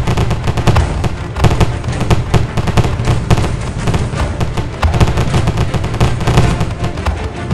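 Rapid, repeated fireworks bursts and crackles from a FWsim fireworks simulation, layered over music.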